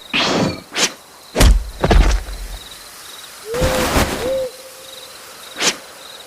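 Night-time sound effects: an owl hoots twice a little past the middle over faint repeated cricket chirps. Sharp swishes and two heavy low thuds come in the first two seconds, and a single sharp click near the end.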